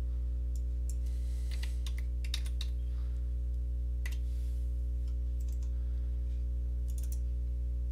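A few computer keyboard keystrokes and mouse clicks, scattered and grouped in short runs, as a dimension value is typed into CAD software and confirmed. A steady low electrical hum runs underneath and is the loudest sound.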